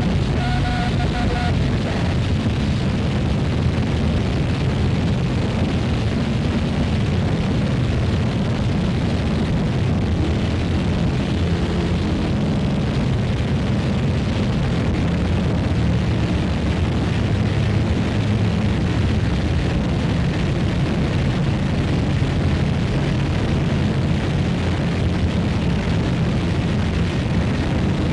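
Electronic drone music played live: a dense, steady low rumble of layered low tones under a wash of noise, with no beat. A short, faint pair of higher tones sounds at the start.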